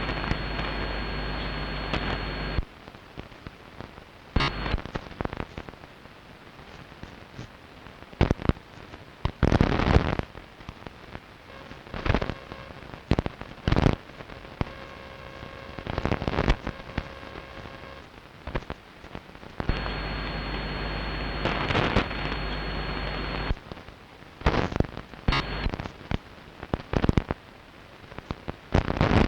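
Longwave AM radio receiver picking up crackling static with irregular sharp crashes and, twice, a loud steady block of noisy interference with a high whistle in it, lasting a few seconds each time (at the start and about 20 seconds in). The interference does not come from the listener's own home, and its cause is unknown.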